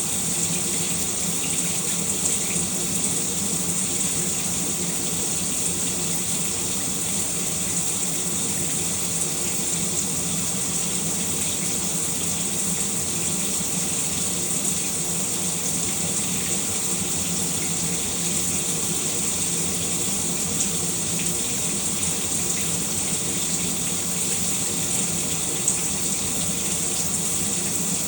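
Shower running steadily, water spraying and splashing without a break.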